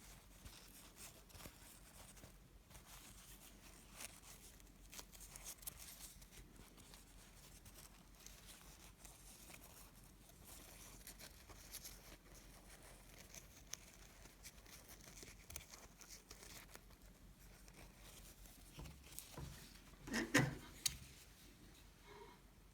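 Faint rustling and light clicks of fabric and ribbon being handled, with a louder brief rustle-and-knock near the end.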